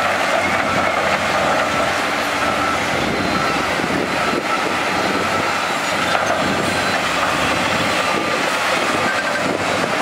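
Diesel engines of heavy earthmoving machines running: a wheel loader and a dump truck. Loose dirt and rock spill from the loader's bucket and the truck's raised bed.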